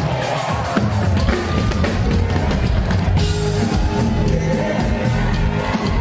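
Live Afrobeats music from a band: a heavy bass line and kick drum under a steady beat.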